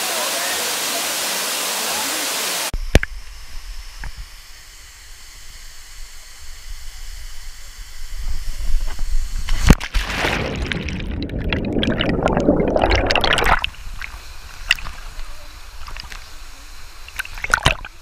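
Steady roar of a waterfall for the first few seconds. It cuts off abruptly to the muffled sloshing and gurgling of a pool's water against a waterproof camera held at the surface by a swimmer. A louder rushing stretch comes while the camera is underwater, and splashes follow as it comes back up near the end.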